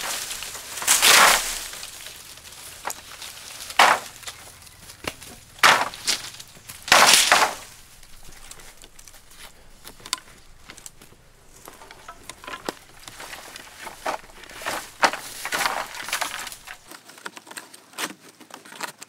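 Long bamboo poles clattering as a bundle is set down and handled, with loud hollow knocks about a second in and again around four, six and seven seconds. After that, lighter knocks and rustles as bamboo rails are worked against bamboo posts and lashed on.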